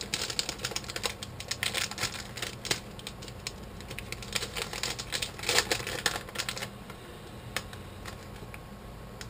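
Plastic snack bag crinkling and crackling as it is handled and torn open, a dense run of sharp crackles that thins to a few scattered ticks about two-thirds of the way through.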